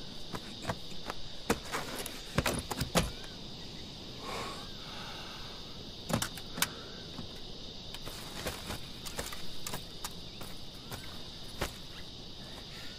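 Steady high insect drone as outdoor ambience, with scattered sharp clicks and knocks of gear being handled, the loudest a few seconds in, around six seconds in, and near the end.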